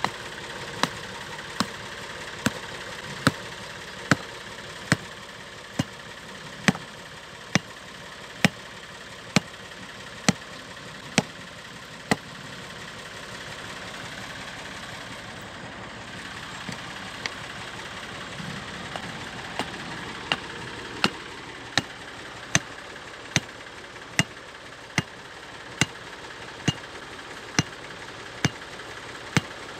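Stone hammering a wooden stake into the ground beside an engine's wooden base. Sharp knocks come about once a second, stop for several seconds partway through, then resume, over a steady mechanical hum.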